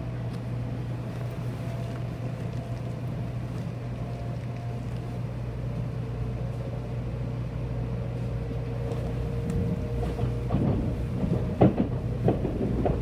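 Inside a Shinkansen bullet-train car pulling out of a station: a steady low rumble and hum of the train under way, with a faint steady whine over it. A cluster of knocks and clatters comes in the last few seconds.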